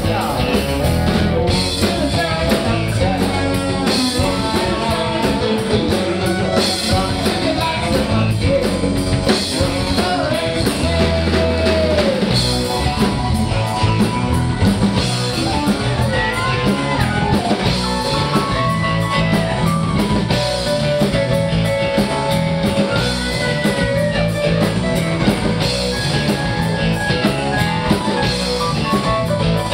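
Southern rock band playing live at full volume: electric guitar and drum kit, with a lead line of bending pitched notes over the band.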